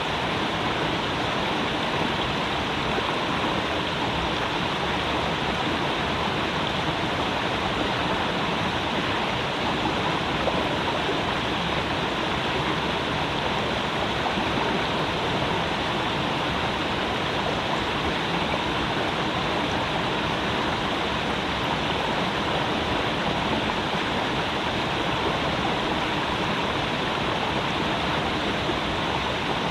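Creek water running and splashing, a steady, even rush with no change.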